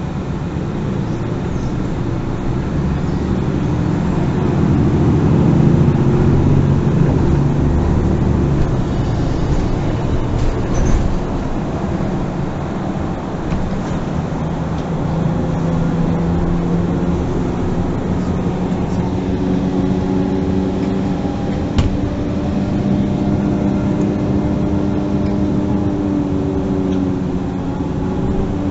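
A MAN NG 363 Lion's City GL articulated city bus under way, heard from inside the passenger cabin: its six-cylinder diesel engine and drivetrain run over tyre and road noise. The rumble is heaviest about five to nine seconds in. From about halfway, the engine note climbs slowly and then holds as the bus pulls along. There is a single sharp click about twenty-two seconds in.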